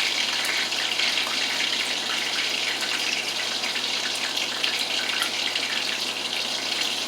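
Chicken pieces sizzling steadily in a frying pan, a constant hiss with small crackles.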